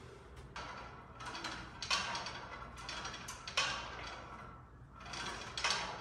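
Gym exercise machine working in repeated strokes, about one a second, each a short mechanical scraping rush.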